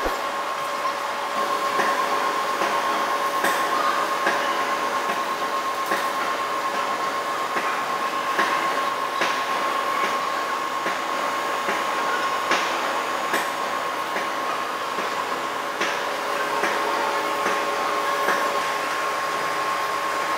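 Large heavy-duty lathe running as it turns a steel workpiece: a steady machine whine over a broad mechanical noise, with scattered sharp ticks.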